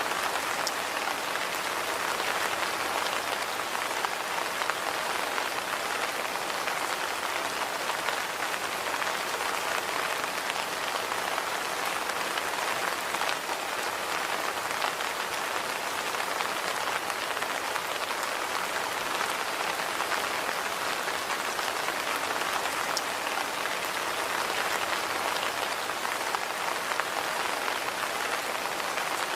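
Steady rain falling on a surface, a dense even patter with scattered individual drop ticks.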